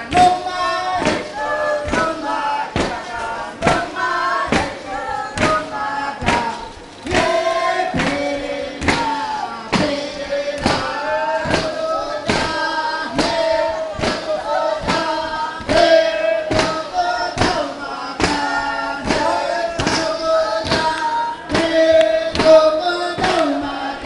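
Uitoto dancers singing a chant together, men's and women's voices in unison with long held notes, over a steady beat of thumps from the dance.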